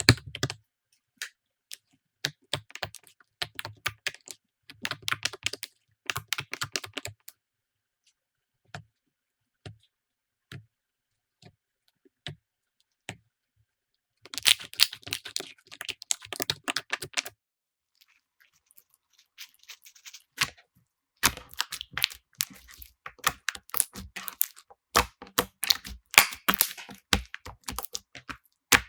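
Slime being squeezed and poked by hand, giving bursts of quick crackling clicks and small pops, with several seconds of near silence between the bursts.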